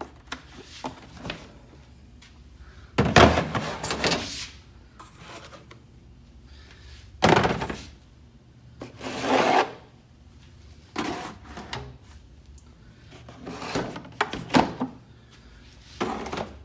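Intermittent handling noise from garage tool storage: several separate bouts of scraping, rubbing and knocking as items and storage are moved, with short quiet gaps between.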